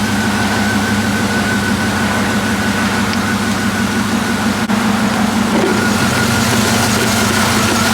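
Pickup truck engine idling steadily while it warms up, with a thin high whine running over it. The owner says it is idling a bit rough and has a check-engine light, which he puts down to old spark plugs.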